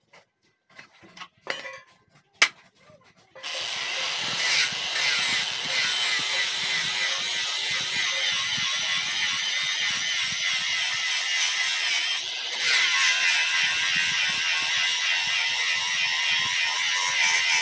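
A few light knocks, then about three and a half seconds in an angle grinder with a flap disc cuts in on a steel sickle blade. It grinds steadily, a loud high-pitched rasping hiss, with a brief dip about twelve seconds in.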